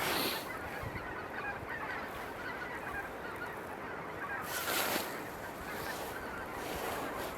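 A large flock of waterfowl honking, a dense, continuous chatter of many overlapping calls, with a louder rush of sound a little after halfway.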